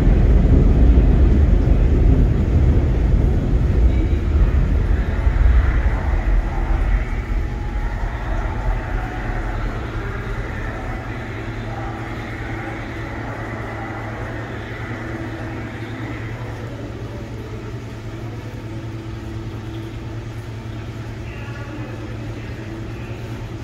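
Subway train rumble in the station, loud at first and fading away over several seconds, leaving a steady low hum.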